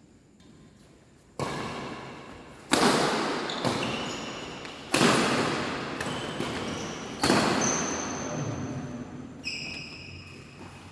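Badminton rally: five sharp racket strikes on the shuttlecock, about two seconds apart, each ringing out in a reverberant sports hall.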